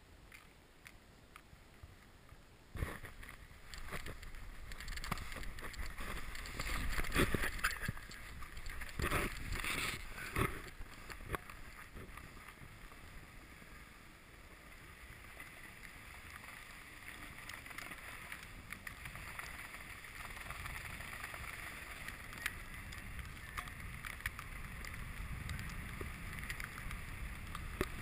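A rider sliding down a snowy slope: the hiss and scrape of a board or skis over snow, rising about three seconds in, with louder scraping turns up to about eleven seconds in, then settling into a steadier hiss.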